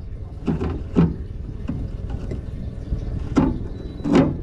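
Steady low rumble of wind and water around a small fishing boat, broken by four short knocks or slaps. The loudest comes near the end.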